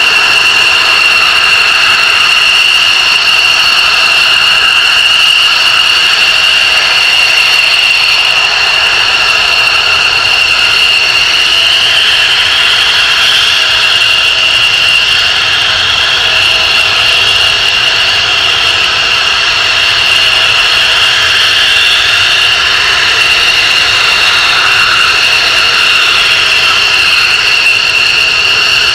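Loud F-16 fighter jet engine sound: a steady high-pitched whine with a strong constant tone over a rushing noise, holding level without a clear rise or fade.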